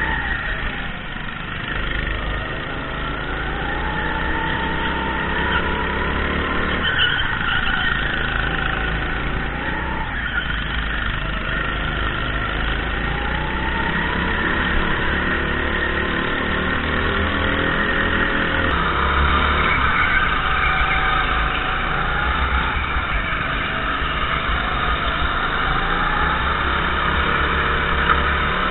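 Indoor rental go-kart engine heard from onboard, revving up and dropping back again and again as the kart accelerates out of turns and lifts for the corners. Under it runs a steady low rumble of vibration and wind on the kart-mounted camera.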